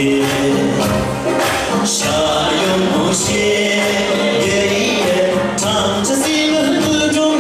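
A man singing a song into a microphone over amplified backing music with a beat.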